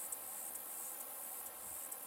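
High-pitched insect chorus, steady, with a faint pulsing about twice a second.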